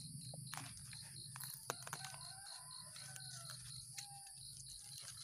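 Crickets or other insects trilling steadily with a fast pulsing rhythm, with a few faint clicks as garden plants are handled.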